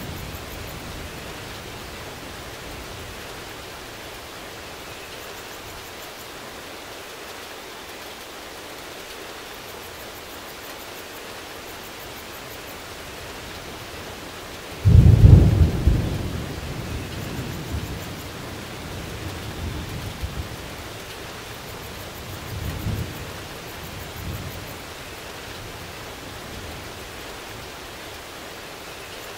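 Steady rain with a sudden loud clap of thunder about halfway through that rumbles away over a couple of seconds, followed by a few fainter rolls of thunder.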